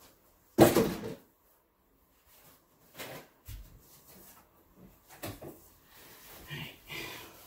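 A series of knocks and clatters of things being handled. The first, about half a second in, is the loudest; softer ones follow at irregular intervals.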